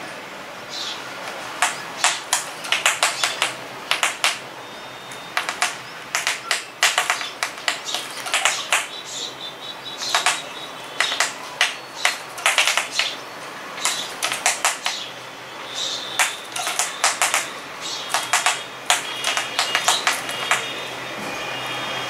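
House sparrows pecking and fluttering at their own reflection in a mirror: irregular clusters of sharp taps of beaks on the glass, with wing flaps and a few short chirps in the second half.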